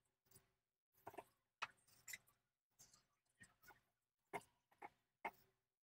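Faint, scattered crackles and pops of urad dal batter balls deep-frying in hot oil, about two a second, with a sharper pop a little over four seconds in as more batter goes into the oil.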